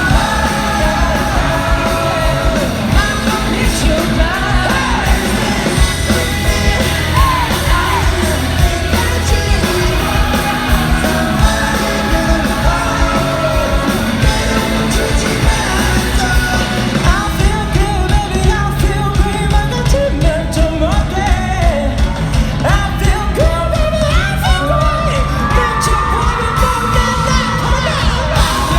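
Live rock band playing in a concert hall, with singing over drums and bass and a crowd yelling and cheering along.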